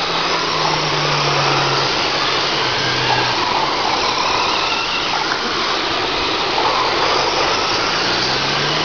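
A pack of radio-controlled race trucks running laps on a dirt oval: their small motors whine, rising and falling as they pass, over a steady noise of the trucks on the track. A steady low hum sounds through the first few seconds.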